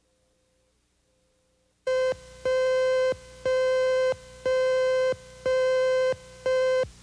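Editing-station cue tone on a videotape slate: a steady electronic beep with a buzzy edge, pulsing about once a second. It starts about two seconds in with one short beep, followed by five longer ones.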